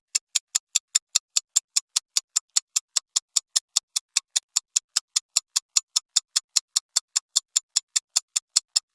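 Countdown-timer ticking sound effect: rapid, even ticks, about five a second, marking the time allowed to answer a quiz question.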